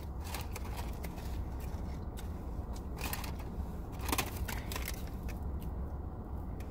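Close-up chewing with scattered crackles and rustles of a paper food wrapper, over a steady low hum.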